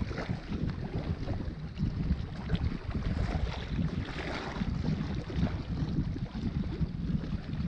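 Wind buffeting the microphone in uneven gusts, over small waves lapping against shoreline rocks.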